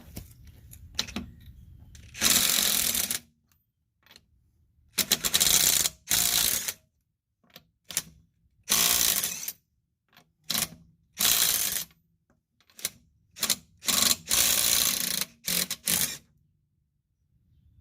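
DeWalt DCF787 20V brushless impact driver, fitted with a 1/2-inch adapter and a 21 mm impact socket, hammering in reverse on car lug nuts. It runs in about a dozen short bursts, each up to about a second long, as the nuts break loose and spin off easily.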